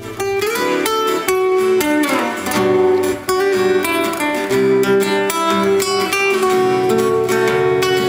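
Music: a guitar-led instrumental passage without singing, with plucked and strummed notes.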